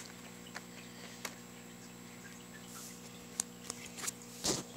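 Plastic Blu-ray case and discs being handled: one sharp click at the start, then scattered light clicks and taps, with a louder rustle of handling near the end, over a faint steady hum.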